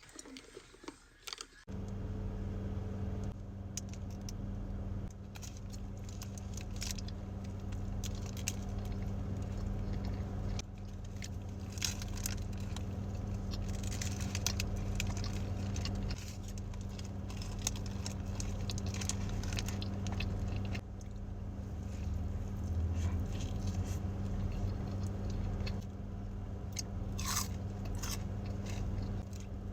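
Close-up chewing and crunching of fast food, many short wet and crisp mouth sounds, over a steady low hum that starts about two seconds in.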